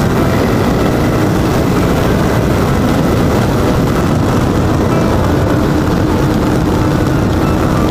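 Motorcycle under way: wind rushing and buffeting over the bike-mounted camera's microphone, with the engine running underneath, at a steady level. Faint music is mixed in.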